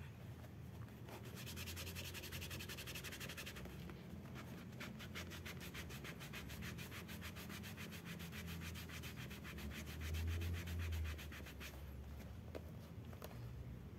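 A cloth rubbed rapidly back and forth over a bicycle saddle cover, scrubbing off its screen-printed logo. There is a short spell of strokes about a second in, then a longer steady run of strokes from about four and a half seconds until near the end.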